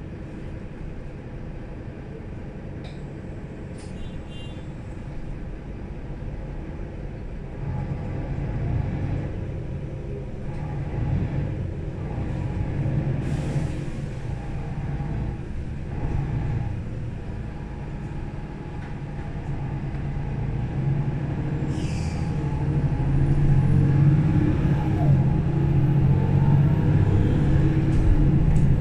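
Mercedes-Benz O530 Citaro Facelift city bus heard on board while driving: the engine and drivetrain run with a low rumble that gets louder in two stages as the bus picks up speed. A brief high beep sounds a few seconds in, and air hisses briefly twice, near the middle and again later.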